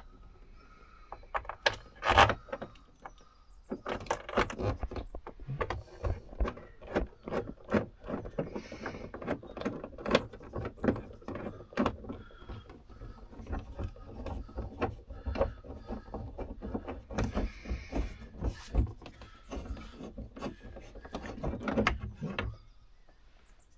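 Plastic cab trim being handled and fitted by hand: a run of irregular clicks, knocks and rattles, with one sharp knock about two seconds in.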